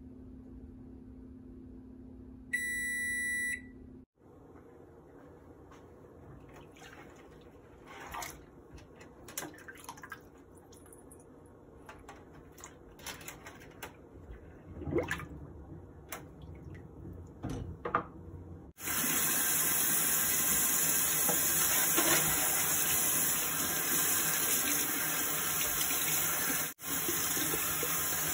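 Microwave oven humming as it runs, ending with one long beep about three seconds in. Then hands slosh and swish a leather handbag in a sink of soapy water, with scattered splashes, until a tap sprayer comes on about 19 s in and runs steadily as the bag is rinsed.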